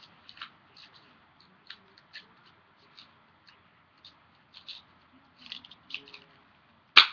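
Leatherman Super Tool multitool being handled: scattered light metal clicks and taps, with one sharp, louder click near the end.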